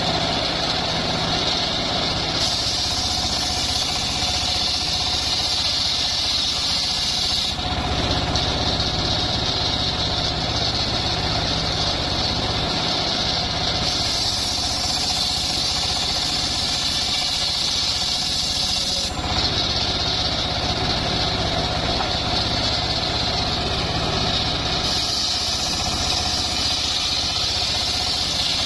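Homemade circular sawmill ripping a trembesi (rain tree) log: the machine's drive runs steadily under the high whine of the big blade cutting through the wood. The sound shifts about every five or six seconds as passes start and end.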